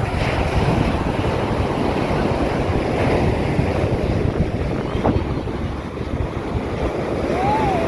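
Surf washing onto a beach, mixed with wind buffeting the microphone in a steady rush of noise. A brief rising-and-falling tone sounds near the end.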